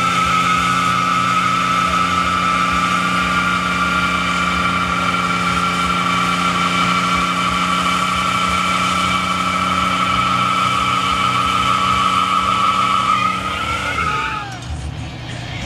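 Car's rear tyres spinning in a stationary burnout: a steady high-pitched tyre squeal over the engine held at high revs. About two seconds before the end the squeal wavers and breaks off as the revs come down.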